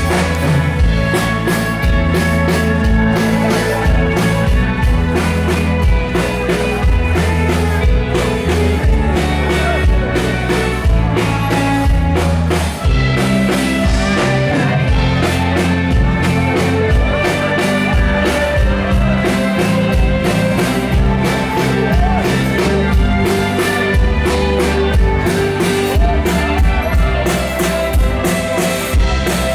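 A live band playing rock-style music, with drum kit and guitar over a steady beat.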